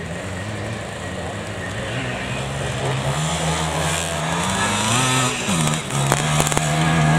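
Classic enduro motorcycle engine revving under load as the bike rides across a grassy slope. The pitch climbs a few seconds in, drops briefly, then holds high, getting louder as the bike comes closer near the end.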